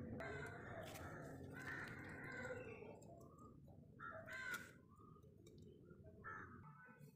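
Crows cawing: several faint caws a second or two apart, over a low steady background rumble.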